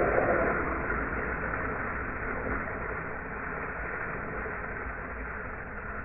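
Longboard wheels sliding sideways across asphalt in a long hand-down slide, a steady rough scraping noise that fades as the board moves away.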